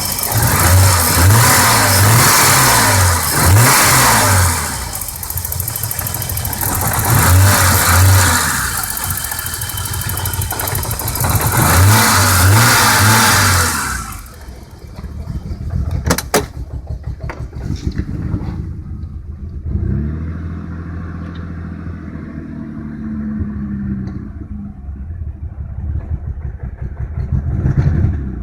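1987 BMW 535is straight-six engine revved up and let fall back three times, then settling to a quieter idle that pulses unevenly: a rough idle.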